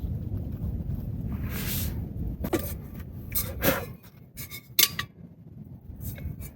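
Camp cookware and utensils clinking several times as they are handled, the clinks bunched about halfway through. A low rumble of wind buffeting the microphone runs under the first part and drops away after about four seconds.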